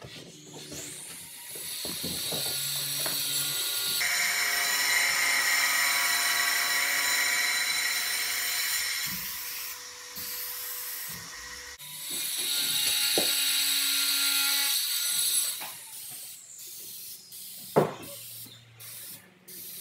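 Aerosol can of spray adhesive hissing in two long sprays, the first about ten seconds and the second about three and a half, with a steady whistle over the hiss. A single sharp knock comes near the end.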